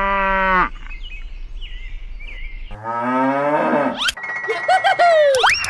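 Cow mooing, twice: a long moo that ends under a second in, and another about three seconds in that falls in pitch at its end. Short squeaky sounds follow near the end.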